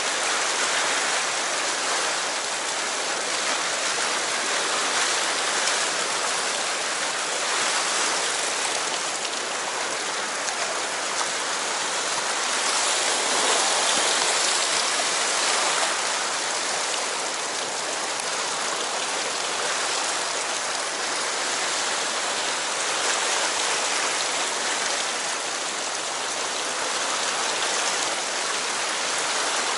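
Fast river current rushing through whitewater rapids: a steady, unbroken hiss of churning water.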